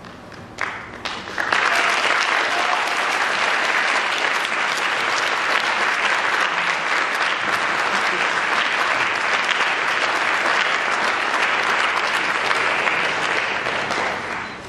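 Audience applauding: a few scattered claps at first, swelling into full, steady applause about a second and a half in, then dying down near the end.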